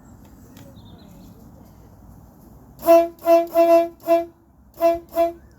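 Train horn sounding six short blasts on one steady note: four in quick succession, a brief pause, then two more. A steady low rumble sits beneath it.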